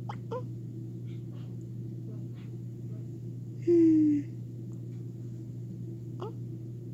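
Hiccups: short, quick-rising chirps, one near the start and another near the end, over a steady low hum. About halfway through comes a louder half-second tone that falls slightly in pitch.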